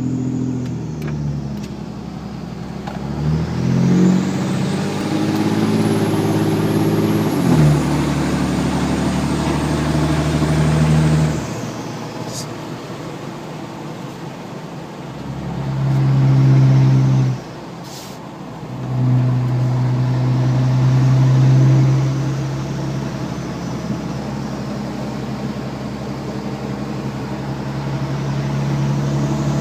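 Dodge 5.9 Cummins turbodiesel with an aFe stage 2 intake and straight 4-inch exhaust, driving under load with a high turbo whistle that rises and falls over the engine. The engine note climbs a few seconds in and drops away briefly past the middle before picking up again.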